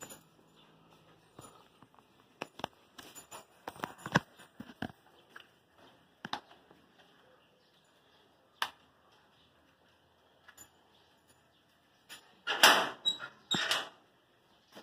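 Scattered light knocks and clicks, with two louder clattering noises close together near the end.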